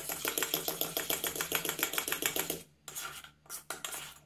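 Steel spoon beating coffee powder, sugar and a little water against the sides of a small steel pot, whipping it into a frothy cream: a fast, even clatter of strokes that stops about two and a half seconds in, then a few slower scrapes of the spoon in the pot.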